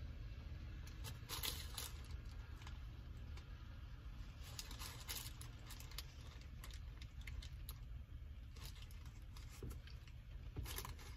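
Quiet handling of a breakfast biscuit and its paper wrapper: scattered crinkles and light clicks in small clusters, over a low steady rumble inside a car.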